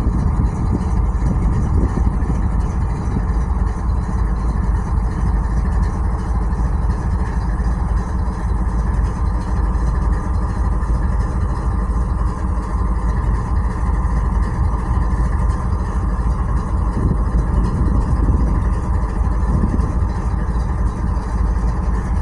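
Diesel-electric freight locomotives idling up close: a steady, deep engine rumble that holds unchanged.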